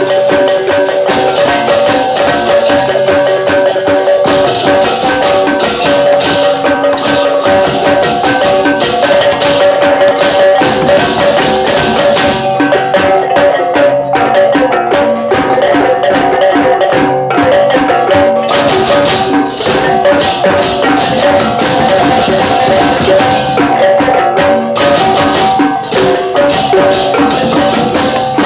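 Balinese gamelan playing: bronze metallophones ringing in fast, steady interlocking tones, over a dense high clashing that drops out for several seconds midway and briefly again near the end.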